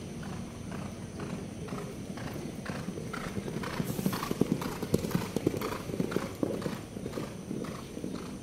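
Two ridden racehorses galloping on a dirt track, a regular beat of hooves on packed earth that grows loud as they pass close by about four seconds in and then fades as they go on.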